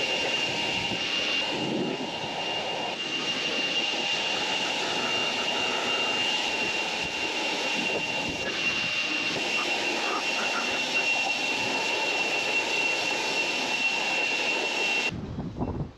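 Handheld leaf blower running steadily with a high whine, blowing water off a freshly washed golf cart to dry it; it cuts off near the end.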